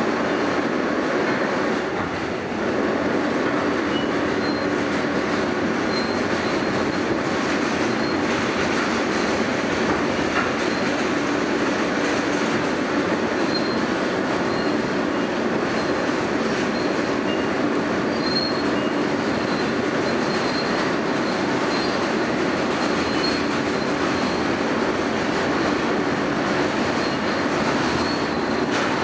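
Inside an R160A subway car running at speed: a steady, loud rumble of wheels on rail, with a steady low hum and a faint high squeal that comes and goes.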